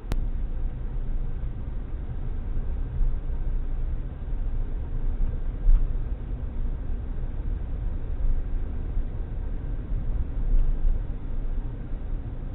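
A moving vehicle's steady low engine and road rumble, with a sharp click at the very start.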